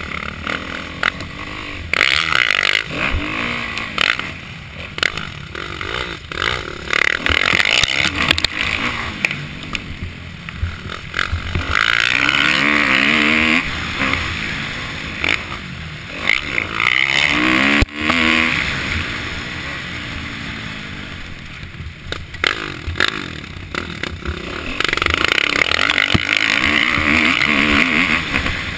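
2012 Kawasaki KX450F's single-cylinder four-stroke engine revving up and backing off again and again while ridden hard, with wind rushing over the camera microphone.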